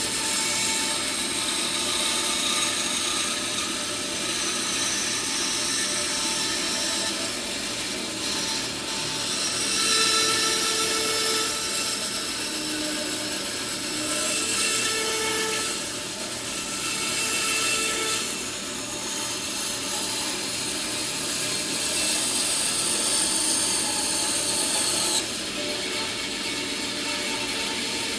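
Bandsaw running and cutting tight curves in redwood, with the pitch and loudness of the cut shifting as the workpiece is fed. At times the blade whines, the sign of the blade twisting in the tight radius.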